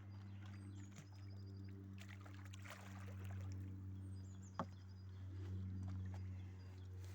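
A steady low hum, like a motor running, with a few short high chirps and one sharp click about four and a half seconds in.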